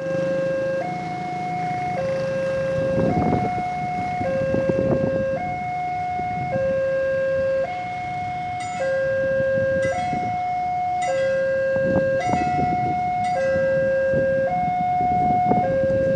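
Railway level-crossing warning alarm sounding: a two-tone electronic signal alternating steadily between a lower and a higher note, each held a little over a second, warning of an approaching train. Road traffic noise runs underneath.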